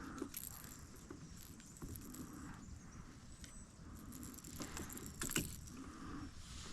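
Faint scattered clicks, light knocks and rustles of handling fish and tackle in a kayak.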